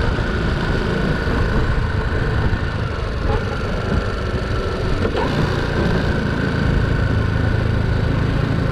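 Honda C90 step-through motorcycle's small single-cylinder engine running at a steady cruising speed while riding, mixed with wind and road rush.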